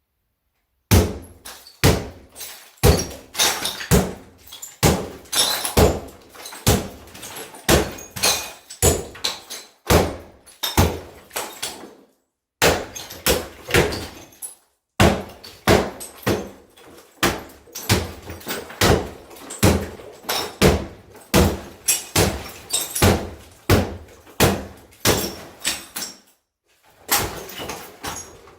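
A wall being smashed: a long run of heavy blows, about one or two a second, each followed by crumbling and rattling debris. There are brief pauses near the middle and shortly before the end.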